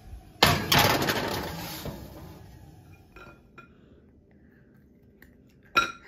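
Metal baking sheet of cookie dough clattering onto a wire oven rack, a loud rattle that dies away over about a second and a half. A short click near the end.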